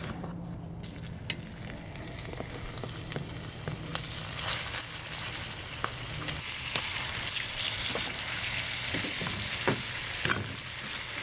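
Raw chicken pieces frying in hot oil in an electric wok as they are added a spoonful at a time. The sizzle grows louder as more pieces go in, with scattered light clicks.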